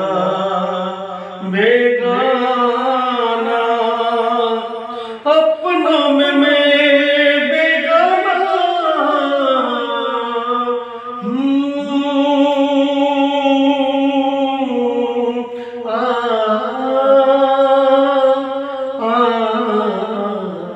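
A man singing, holding long drawn-out notes that waver in pitch, with brief breaks every few seconds.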